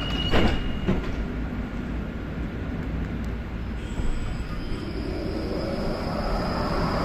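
Electric tram's doors shutting with a knock as the door warning beep ends, then the tram starting off from the stop with a low rumble and a rising traction-motor whine building toward the end.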